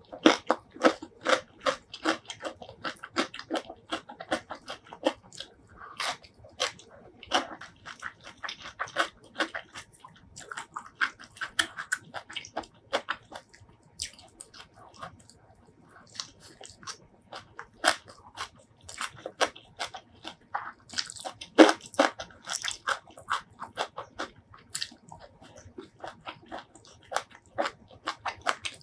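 Close-miked eating: crisp biting and chewing of raw greens and rice with spicy shrimp salad, a quick run of crunches that eases off briefly about halfway through.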